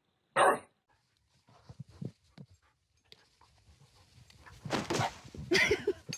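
A dog barks once just after the start, then softer irregular noises follow, with two louder noisy bursts near the end.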